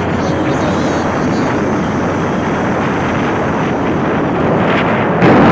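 Wind rushing over the microphone of a moving vehicle, with the vehicle's running and road noise underneath, getting louder near the end.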